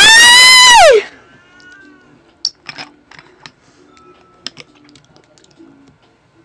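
A loud, high-pitched shriek about a second long that drops steeply in pitch as it ends, followed by quiet wet clicks of chewing close to the microphone over faint background music.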